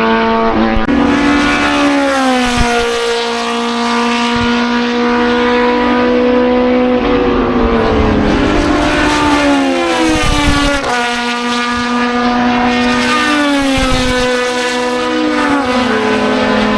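Race car engine running hard, its pitch stepping and gliding down and then back up several times as the throttle and gears change.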